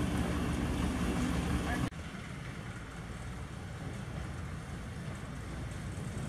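Small narrow-gauge diesel locomotive's engine running as it moves slowly along the track: close and loud for about the first two seconds, then cut off suddenly to a quieter, more distant steady engine rumble.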